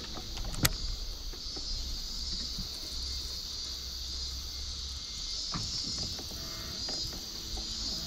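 Baitcasting rod and reel handled during a cast: one sharp click about half a second in, then a few softer knocks, over a steady high hiss.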